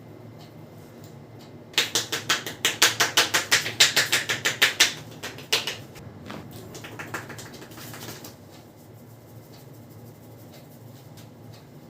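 Rapid series of sharp hand slaps, about six a second, starting about two seconds in and trailing off into a few softer strikes: a barber's quick percussive chopping strokes during a head massage.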